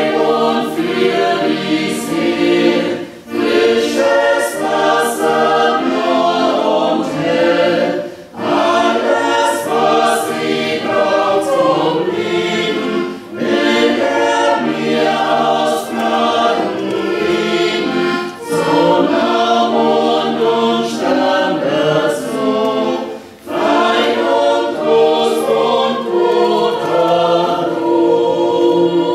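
A choir singing, in phrases of about five seconds with short breaks between them.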